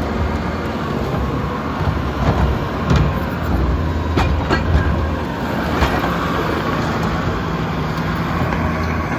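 Bobcat T740 compact track loader's diesel engine running steadily under work, with several sharp metallic clanks and knocks between about two and six seconds in.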